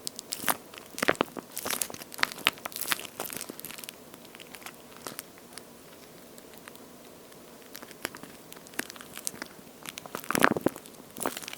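A watery-feel squishy toy shaped like two-layer toast being squeezed and handled, giving sticky crackling and crinkling. It is busy for the first few seconds, then goes quieter with only scattered ticks, and there is another louder flurry of crinkling near the end.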